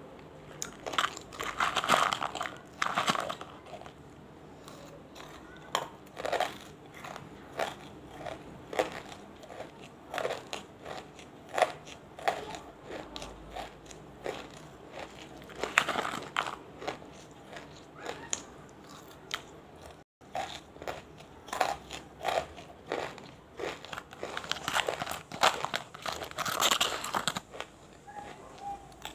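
Close-up biting, crunching and chewing of banslochan (tabasheer, chalky bamboo silica): small wetted pieces mixed with big dry ones. The crunches come irregularly, with denser bursts near the start, about midway and near the end.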